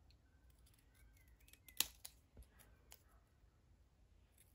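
Small craft scissors snipping a narrow strip of paper: a few faint, sharp snips, the clearest a little under two seconds in.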